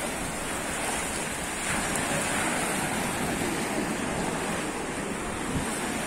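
Steady wash of sea surf, with wind buffeting the microphone.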